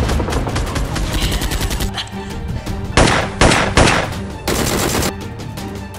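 Rapid automatic gunfire sound effects, then three loud single shots about three seconds in and a short burst of fire near the end, over background music.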